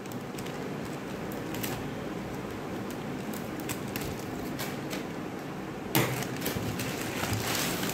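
Scissors snipping through a plastic courier mailer, with the plastic crinkling. About six seconds in, a sudden loud crackle and rustling as the cut strip of the bag is pulled away.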